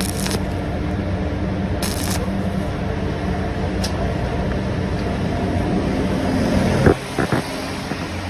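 Stick-welding (SMAW) arc on an E6013 electrode, a steady crackling hiss with a low hum underneath, which breaks off sharply about seven seconds in when the arc is stopped. A few sharp ticks follow from the hot weld.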